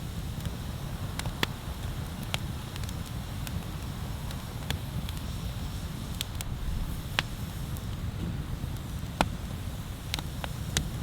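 Wood bonfire crackling, with irregular sharp pops over a steady low rumble.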